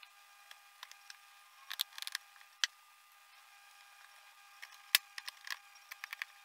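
Scattered light clicks and taps from a screwdriver and hands handling the plastic back cabinet of an LED TV, the sharpest about five seconds in.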